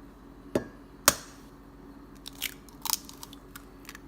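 An egg knocked against the rim of a cup and cracked: two sharp knocks about half a second apart, the second the louder, then light clicks and taps as the shell is handled.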